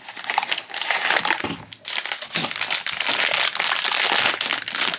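Foil blind-bag wrapper crinkling and crackling as hands work it open, with the cardboard box rustling near the start. It is brief and irregular, with one short lull about two seconds in.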